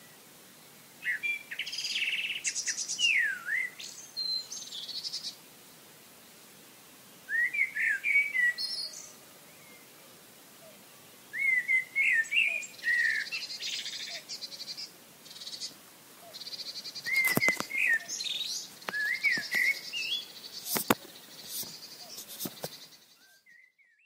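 Songbirds singing in bursts of quick, varied chirping phrases separated by short pauses, over a faint steady hiss. A few sharp clicks fall among the later phrases, and the song fades out near the end.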